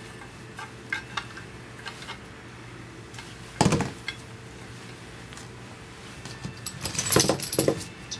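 Small metal clicks and clinks from parts being handled inside a cast-aluminium foot pedal housing while the ground wire is taken off, with a louder knock about three and a half seconds in and a quick cluster of clinks near the end.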